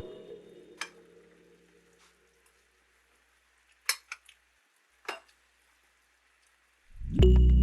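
Background music dies away, then a few light, sharp clinks of kitchen utensils against dishes, spaced about a second apart. Music starts again near the end.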